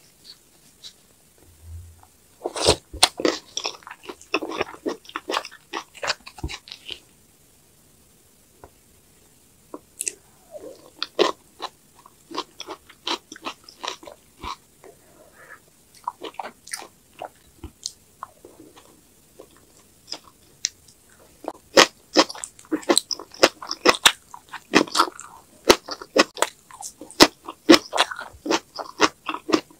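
Close-miked eating: biting, chewing and crunching on soy-sauce-marinated raw crab with rice, then green onion kimchi. The sounds come in clusters, with a brief quiet pause about a quarter of the way in, and grow dense in the last third.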